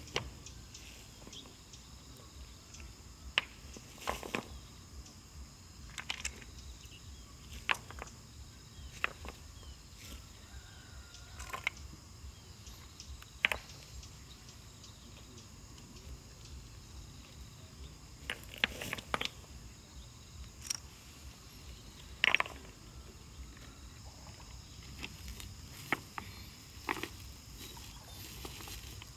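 Scattered sharp knocks and clicks at irregular intervals, over a steady high-pitched insect drone.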